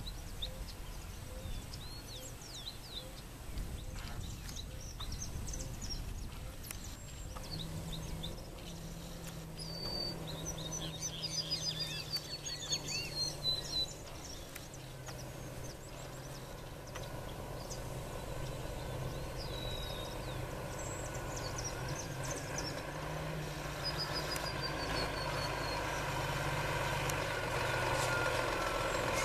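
Loaded Scania truck's diesel engine drawing nearer along a dirt road, faint at first and growing steadily louder toward the end, while birds chirp in the first half or so.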